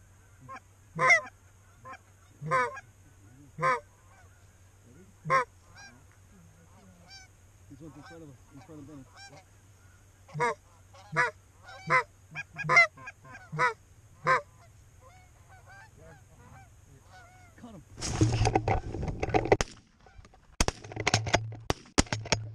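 Goose honks, loud and sharp, repeated about once a second in two runs, with fainter honking between them. Near the end come a dense burst of rustling and clatter, then several sharp cracks.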